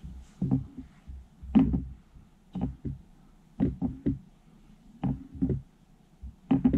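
Hands patting and pressing flour onto an egg-washed fish fillet in a ceramic platter: short dull knocks, about one a second and often in pairs.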